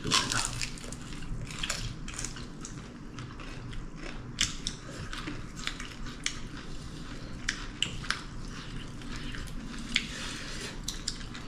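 People chewing and biting food during a meal, with irregular small crunches and clicks throughout.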